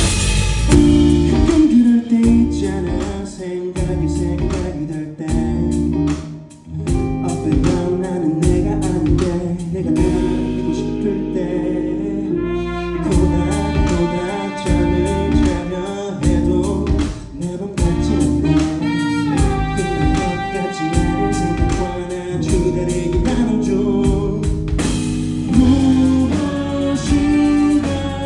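Indie band playing a song live, with a singer over a steadily beating drum kit and guitar.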